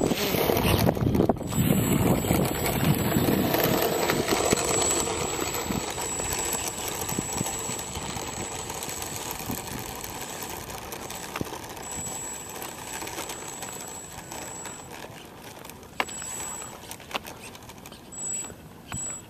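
Gusty wind buffeting the microphone, a low rumbling rush that is strongest at first and slowly dies down. A thin high whine comes and goes over it.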